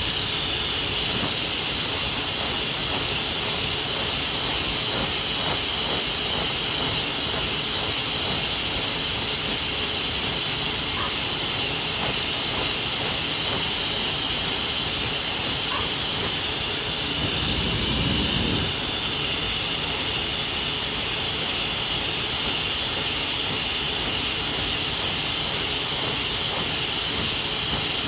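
A high-velocity pet dryer blowing air through a dog's coat in one steady, loud hiss, with a brief deeper rush of air about two-thirds of the way through.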